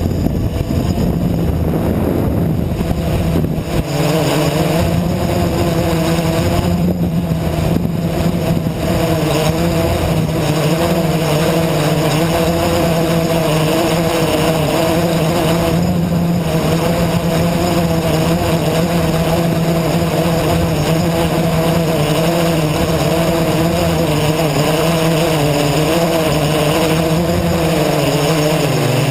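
Blade 350 QX quadcopter's brushless motors and propellers buzzing steadily in flight, heard from the onboard camera, with the pitch wavering up and down as the throttle shifts.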